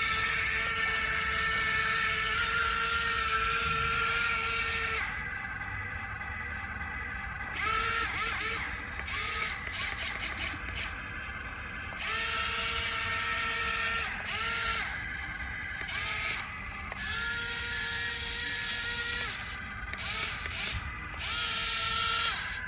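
RC toy excavator's small electric motors whining in bursts, starting and stopping as the controls are worked, with a short rise in pitch each time a motor spins up.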